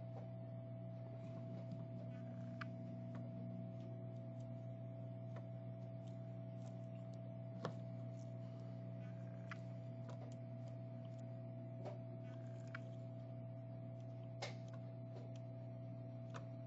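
Steady electrical hum from bench repair equipment, with scattered faint clicks and taps of small tools working on a phone circuit board during soldering.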